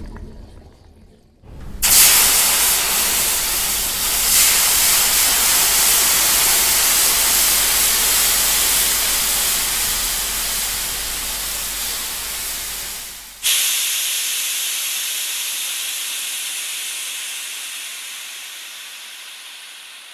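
Steam hissing loudly as it escapes from a pipe, starting abruptly about two seconds in. About two-thirds of the way through it switches suddenly to a thinner, higher hiss that slowly fades away.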